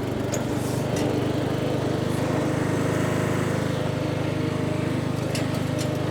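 John Deere S92 lawn tractor engine running at a steady pitch, with a few faint clicks about five seconds in.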